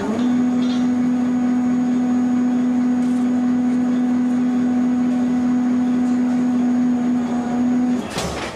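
CNC spring-forming machine coiling thick wire into a heavy spring: a loud, steady hum at one pitch that stops about eight seconds in, followed by a brief burst of noise.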